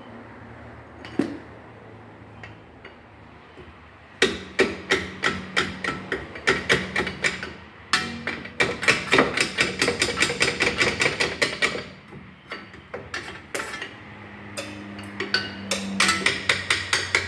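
Rapid hammer blows on metal, about four a second, in long runs that begin a few seconds in, with a short pause in the middle. A rusted, seized ball joint in a VW Santana's front suspension is being knocked loose.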